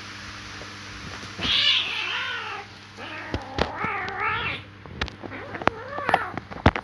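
Cats fighting: three drawn-out, wavering yowls starting about a second and a half in, with sharp knocks and clicks between them.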